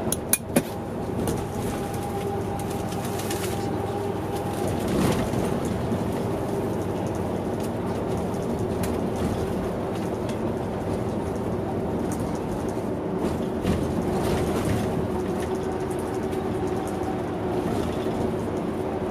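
A bus running with a steady hum, with a few sharp clicks about half a second in.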